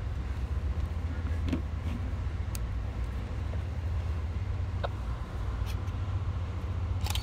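Steady low rumble of a moving Amtrak passenger train heard from on board, with a few faint clicks and knocks.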